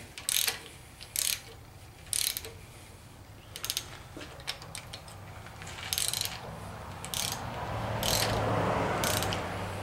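Hand socket ratchet clicking in short, irregular spells as it tightens the rocker-arm adjusting nuts on a Chevrolet 350 small-block, taking the slack out of the pushrods. A rushing noise builds near the end.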